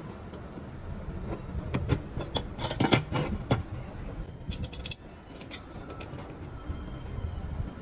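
Parts of a cast aluminium fry cutter knocking and clinking against each other and a metal base plate as they are fitted together by hand, loudest in a cluster of knocks about three seconds in. A low steady rumble runs underneath.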